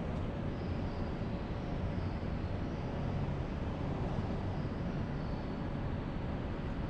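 Steady road and engine noise of a car being driven, mostly low-pitched and even, with no sudden sounds.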